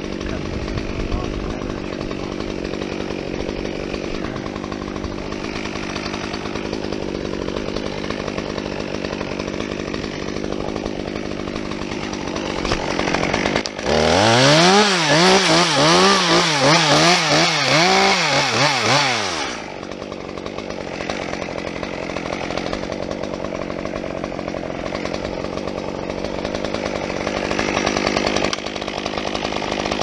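Chainsaw idling steadily, then run up to high speed for about five seconds midway, its pitch wavering up and down as if loaded in a cut, before dropping back to idle.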